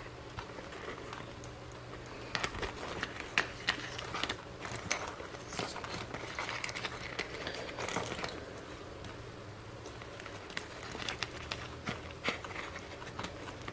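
Paper album pages and tags rustling as they are handled, with scattered light clicks, over a low steady hum.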